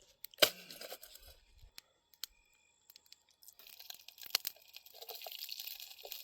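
A sharp knock about half a second in, then near quiet; from about three and a half seconds in, hot oil sizzles and crackles steadily as a tadka is tempered.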